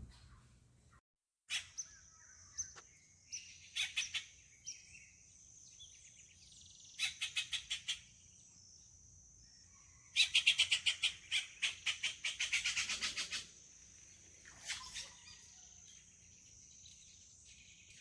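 Birds calling in several short runs of quick, sharp repeated notes; the longest and loudest starts about ten seconds in and lasts some three seconds. A steady high-pitched hum sits underneath.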